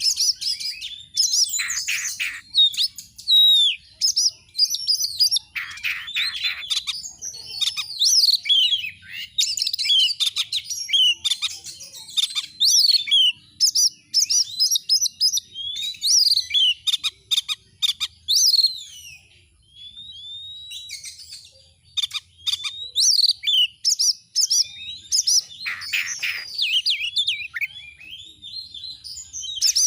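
Oriental magpie-robin (kacer) in full song: a continuous run of varied whistled phrases with quick pitch glides, broken by harsh rasping bursts. The song dips into a short lull about two-thirds of the way through.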